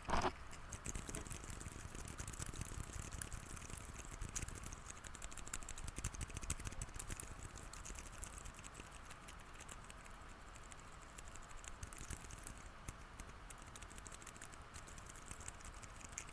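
Quiet mechanical keyboard switches on a keycap keychain fidget clicker being pressed over and over, giving a stream of soft, muffled clicks.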